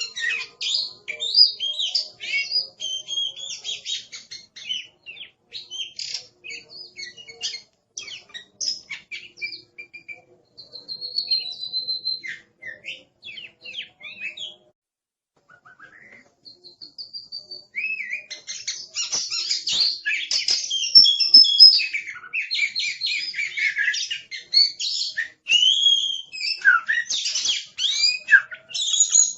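Oriental magpie-robin (kacer) singing a fast, varied run of high whistles, chirps and rasping notes, breaking off for about a second near the middle before starting again more densely.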